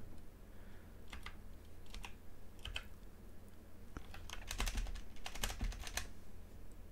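Computer keyboard keystrokes: a few single taps, then two quick runs of typing about four and five seconds in.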